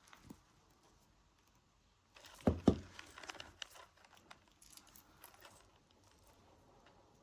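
Small clicks and rattles of beads and jump rings being handled while the bracelet is finished off, with two sharp knocks about two and a half seconds in, followed by a flurry of light clicks.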